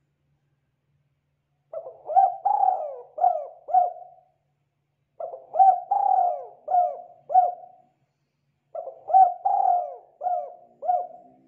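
Spotted dove cooing: three phrases of about five coos each, separated by short pauses, starting about two seconds in.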